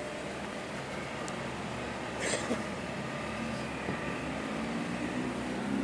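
Steady hum of distant road traffic, with a low engine note growing louder in the second half and a brief sharp sound about two seconds in.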